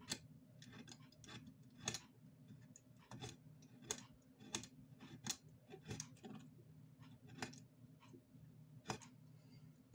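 Faint, short scratching clicks of a small knife blade scraping the nickel connecting strip on a pair of 18650 lithium-ion cells, irregular strokes about one or two a second. The strip is being roughened so that solder will take on it.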